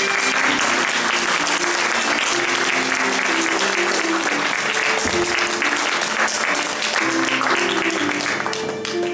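Audience applauding, a dense patter of clapping that thins out near the end, while a violin keeps playing held notes underneath.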